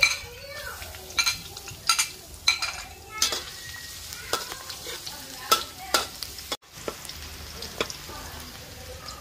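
Chopped garlic sizzling in hot oil in a metal wok, stirred with a metal spoon that scrapes and clinks against the pan every second or so.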